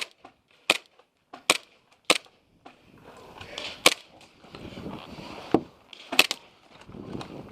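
Single shots from low-powered skirmish-game guns: four sharp cracks at an even pace about two-thirds of a second apart, then three more spaced out. From about three seconds in they sit over a rough, rustling background noise.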